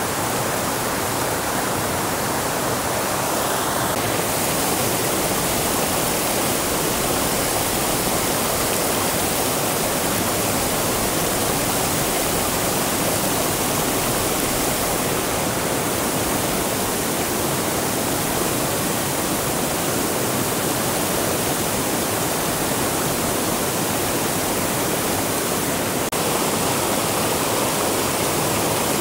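Steady, even rushing of water, like a stream or heavy rain, with no breaks.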